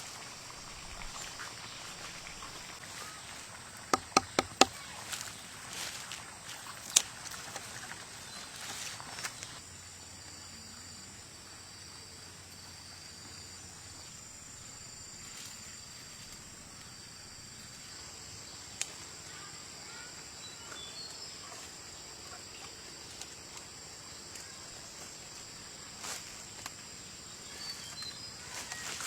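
Insects singing steadily in thin high-pitched tones over rural outdoor background, broken by a few sharp clicks or knocks: a quick run of four about four seconds in, then single ones a few seconds later and near the middle.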